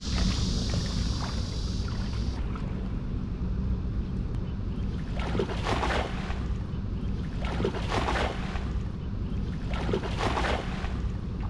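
Someone wading through shallow water: three sloshing surges about two seconds apart in the second half, over a steady rumble of wind on the microphone.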